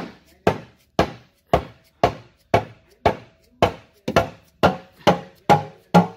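An orange mallet repeatedly striking the steel oil pan of a 2000-2005 Toyota Corolla, about two sharp knocks a second, each with a short metallic ring. The pan's bolts are already out, and the knocking is meant to break it free of its silicone seal.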